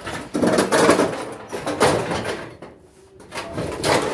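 Plastic casing of an air-conditioner unit being wrenched and shifted on concrete: three rough scraping, rattling bursts.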